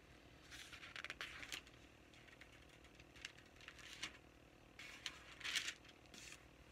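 Thin pages of a Bible being turned and leafed through: several soft paper rustles in clusters, the loudest about five and a half seconds in.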